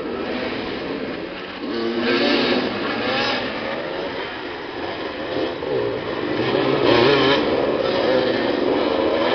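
Several motoball motorcycles' engines running and revving together as the riders jostle for the ball at low speed, their pitch rising and falling repeatedly.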